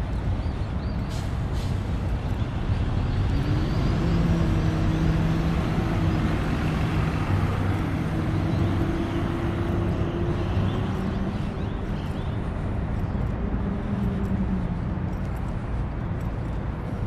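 Street traffic noise with a large motor vehicle's engine hum that comes in a few seconds in, holds steady for about ten seconds, and fades near the end.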